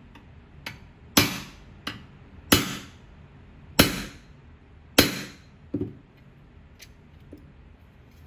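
Four hammer blows on a steel C-frame ram holding a male dimple die, about a second and a quarter apart, each with a short metallic ring: dimpling holes in an aluminium tip rib over a female dimple die bar. Lighter knocks and a click come between and after the blows as the ram and part are set and moved.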